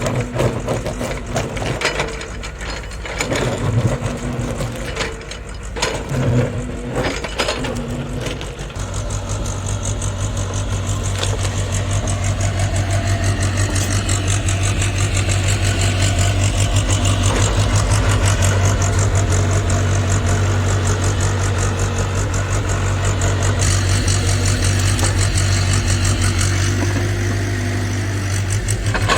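JCB JS81 excavator's diesel engine running, with irregular knocks and clatter for the first several seconds. After that the engine settles into a steady, loud drone under work.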